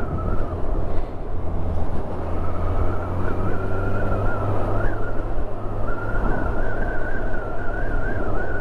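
Wind rush on a helmet-mounted microphone from a Kawasaki Ninja 1000SX ridden at road speed, with its inline-four engine running underneath. A thin, wavering whistle sits over the rush, dropping out briefly about halfway through, from wind past the cracked-open helmet visor.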